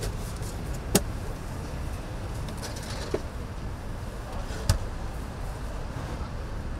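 Street ambience with a steady low traffic rumble, broken by three sharp clicks or taps: about a second in, a fainter one around three seconds, and another just before five seconds.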